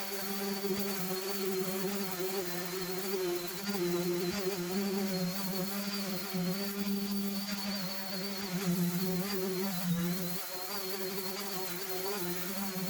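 Electric power sander running steadily on a repaired dashboard, a constant buzzing hum with a high hiss of abrasive on the surface.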